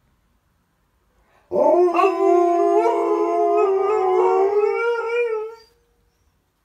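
Two Alaskan malamutes howling together, starting about a second and a half in: two long held howls at different pitches at once, lasting about four seconds before breaking off.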